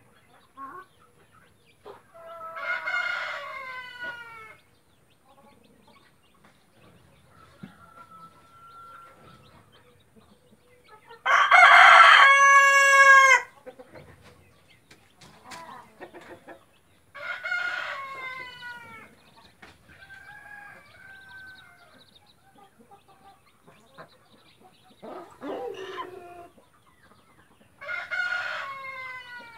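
Roosters crowing about five times, spread out, the loudest and longest crow near the middle, with softer chicken calls between.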